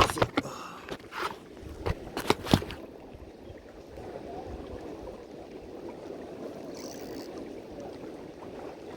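A few short, sharp scrapes and knocks in the first three seconds, then a faint steady wash of sea water.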